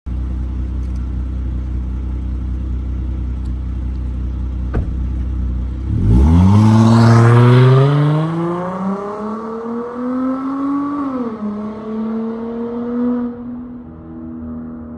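Dodge Charger SXT's V6 through Flowmaster Super 10 mufflers: a low, steady exhaust rumble, then about six seconds in a loud acceleration with the note climbing in pitch. Around eleven seconds the pitch drops sharply, holds steady, then fades as the car moves off.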